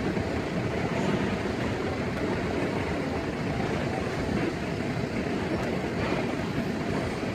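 Freight train cars, covered hoppers and tank cars, rolling past: a steady rumble of wheels on rail.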